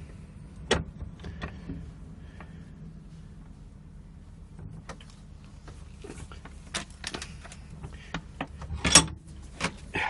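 Scattered metal clinks and knocks from a welded stainless steel and copper joint being worked over in a destructive test, the loudest knock about nine seconds in, over a steady low hum.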